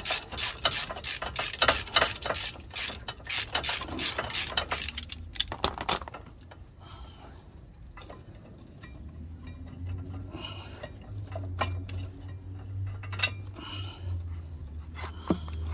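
Hand socket ratchet clicking steadily, about three clicks a second, as a 13/16-inch socket loosens a caliper bracket bolt. The clicking stops about five seconds in.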